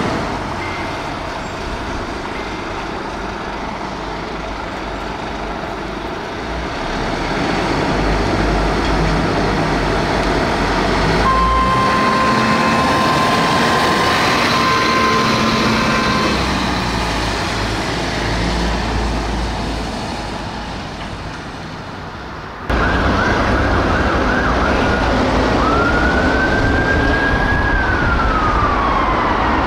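Scania P280 fire engine's diesel engine pulling away and passing, with a steady high tone lasting about five seconds midway. After an abrupt cut, an ambulance siren wails, rising and falling.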